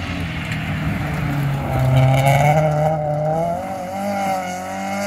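Rally car at full throttle approaching and sweeping past on gravel. The engine note climbs and wavers as the revs change, loudest about two seconds in.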